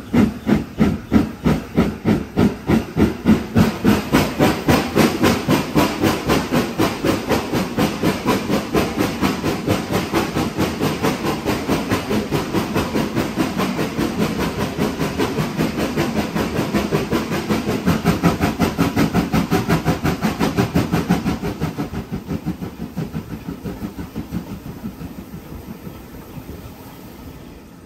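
LMS Black 5 two-cylinder 4-6-0 steam locomotive working away, its exhaust chuffing in a fast, steady rhythm of hissing beats. The chuffs die away over the last several seconds.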